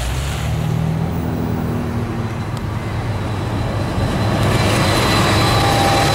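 Norfolk Southern diesel freight locomotives rumbling steadily as they approach at the head of a train. About two-thirds of the way through, thin high-pitched steel wheel squeal joins in.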